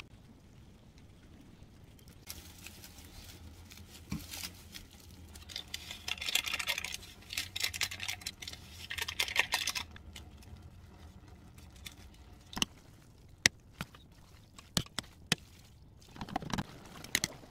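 Instant noodles cooking in a stainless steel pot on an induction cooktop: a stretch of crackling for several seconds, then a handful of sharp taps of a utensil against the pot, and a short stir of the noodles near the end.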